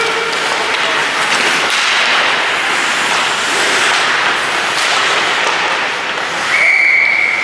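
Ice hockey in play: a steady rink din with skates scraping and sticks clacking on the ice. About a second before the end, one long, steady referee's whistle blast stops play.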